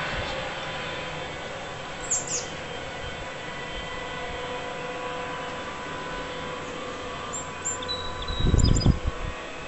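Engine drone of a low-flying gypsy moth spray aircraft, a steady hum fading as it moves away. Birds chirp about two seconds in and again near the end, and a loud low rumble comes in near the end.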